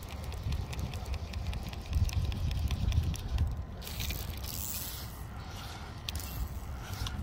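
Fly line hissing through the rod guides as it is cast and shot, in two swishes over the second half, after a run of rapid ticking. Wind rumbles on the microphone throughout.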